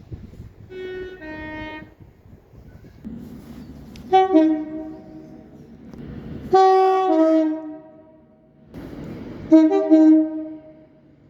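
British train two-tone horns sounding four times, each blast a higher note followed by a lower one. The first is faint; the next three are much louder.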